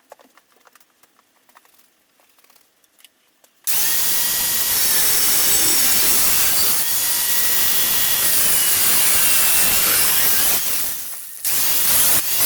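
A few faint handling clicks, then about four seconds in an angle grinder's cutoff wheel starts and cuts steadily into metal for about seven seconds. Its whine dips as the wheel is loaded. It eases off and cuts again briefly near the end.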